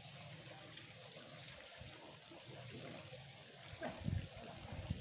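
Faint steady trickle of running water at a fishing pond, with a few short low thumps about four seconds in.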